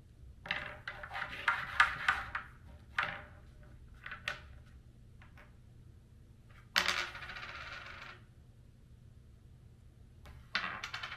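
Wooden crokinole discs clicking and clattering together in quick succession, then a few single clicks. About seven seconds in, a disc is flicked with a sharp click and slides across the freshly waxed board with a steady hiss for about a second; another flick near the end starts a second slide.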